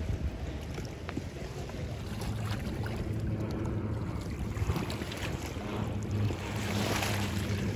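Steady low hum of a boat's engine out on the lake, stronger in the second half, over wind on the microphone.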